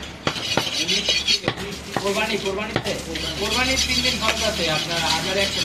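Butcher's knife striking a wooden log chopping block while cutting up a goat shoulder: a quick, irregular series of sharp knocks, most of them in the first three seconds, over voices in the background.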